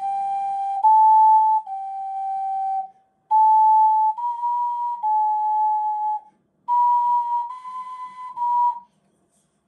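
Ocarina playing three short phrases of clear held notes, each stepping up and back down, each phrase starting a little higher than the last. The steps are deliberately played too low, a demonstration of poor intonation in which the scale sits flat, as if crawling along the ground.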